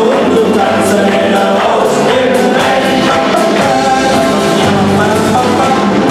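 A live band playing a Kölsch-dialect song: several men singing together in chorus over banjo, accordion and drums, with a steady beat of drum hits.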